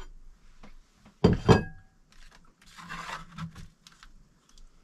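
A sharp clink of dishes with a brief ring, about a second in. Then a spoon scraping and rubbing cooked rice out of a foil pan.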